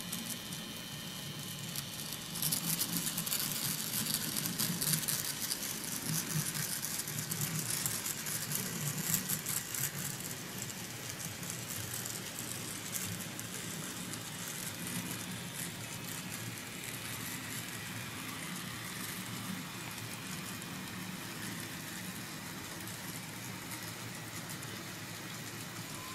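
Diesel locomotive engine sound from the ESU LokSound decoder in an N scale ScaleTrains Tier 4 GEVO (GE ET44C4), playing from its small onboard speaker as the model pulls a long train of cars. Under it is the steady clicking and rattling of the model's wheels and cars on the track, busiest in the first ten seconds or so.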